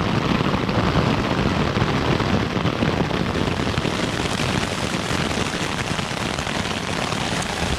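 Heavy thunderstorm rain pelting a tent, a loud, dense, steady patter of drops.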